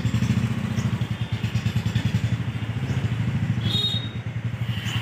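A low engine rumble with a fast, even pulsing beat, steady throughout and easing slightly near the end.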